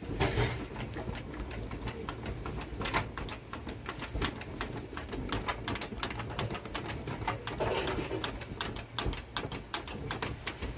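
Charcoal burning in an open steel grill while it is fanned with a piece of cardboard: a dense run of sharp, irregular crackles and flaps, several a second.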